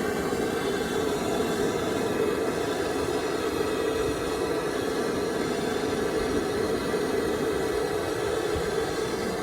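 1999 Chevrolet Tahoe's engine running steadily at idle.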